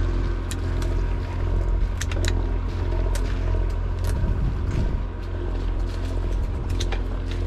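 Party fishing boat's engine running with a steady low drone, with a few sharp clicks and taps scattered over it.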